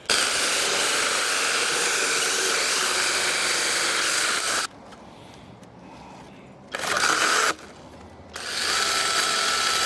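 ImoumLive 6-inch 21V battery mini chainsaw running and cutting through a small log about 4 inches thick. It runs steadily for about four and a half seconds and stops, gives a short burst a couple of seconds later, then runs again near the end.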